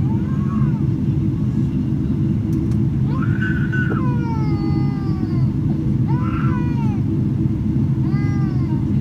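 Steady low rumble of a Boeing 777-300ER's cabin in flight, with a baby crying out several times over it; the longest cry, about three seconds in, trails down in pitch.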